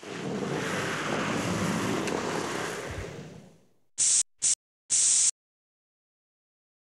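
A broad rushing noise that fades out over about three and a half seconds, followed by three short hisses of an aerosol spray-paint can, the last one the longest.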